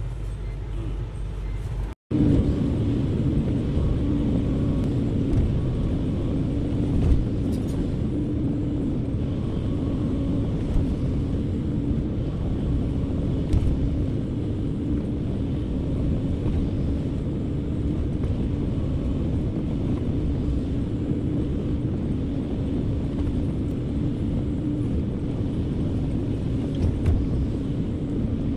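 Excavator's diesel engine running steadily with a low rumble and a steady hum, with a few short knocks. The sound cuts out for an instant about two seconds in.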